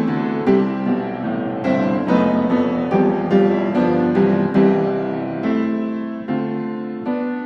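Background piano music: a gentle melody of struck notes, each ringing on and fading.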